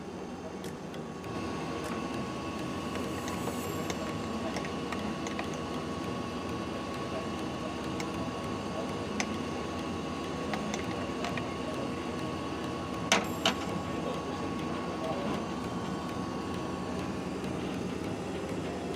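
Steady machine hum with a constant high whine that starts about a second in and fades near the end, over a low murmur. A few light clinks of a spoon against the cup, two sharp ones close together about two-thirds of the way through.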